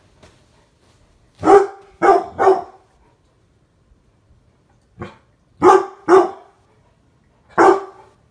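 Mastiff barking loudly in deep single barks: a run of three, then three more starting with a softer one, then a final bark.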